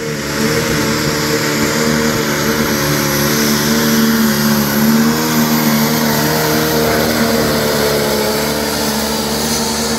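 Modified Case IH 7250 pulling tractor running at full throttle while dragging the weight-transfer sled, a loud, steady engine note that wavers slightly in pitch.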